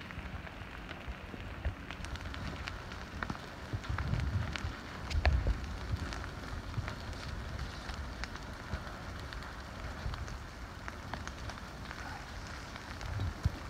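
Advancing lava flow crackling and clinking as its cooling crust cracks and shifts, with brush catching fire at its edge: many scattered sharp ticks over a steady hiss. Louder low rumbles come about four and five seconds in and again near the end.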